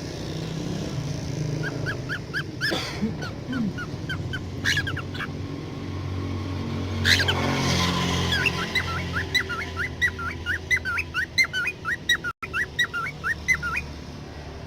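Budgerigars chirping in quick runs of short squeaky calls, densest in the second half, with a few brief bursts of rushing noise, the loudest about halfway through.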